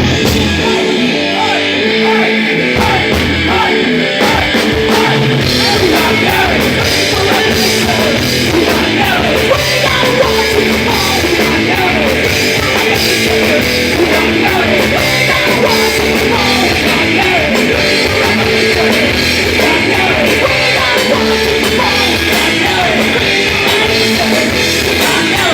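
Rock band playing live and loud, punk-rock style: electric guitars over bass and a drum kit, with the drums coming in after about two seconds of guitar.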